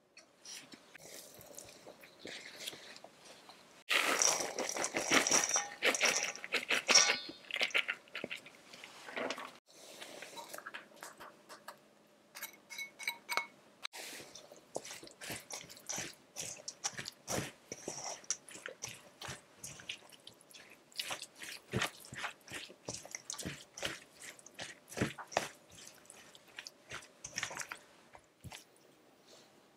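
Vegetable dumpling filling of chopped cabbage, garlic chives and crumbled tofu being added to a stainless steel bowl and mixed, with crunchy, squishy rustling. A loud, dense stretch of crunching comes a few seconds in, followed by a long run of sharp, irregular crackles and clicks as the filling is stirred.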